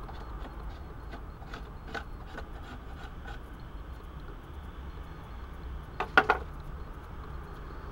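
A metal blade scraping and tapping against the inside of a small tin can of wax, with a louder short clatter about six seconds in.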